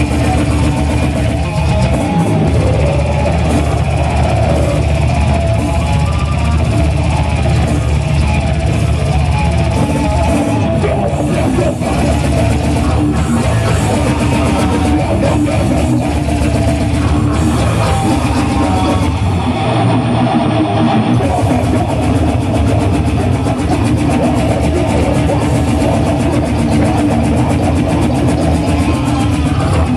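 Brutal death metal band playing live and loud, heavily distorted guitars and bass in a dense, unbroken wall of sound, with a brief let-up in the low end about twenty seconds in.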